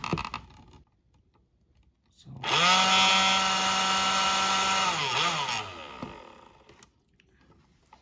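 Roomba 675 vacuum fan motor, run bare from clip leads with its cover unclipped. It spins up about two seconds in to a loud, steady whine, runs for about three seconds, then winds down with falling pitch and stops.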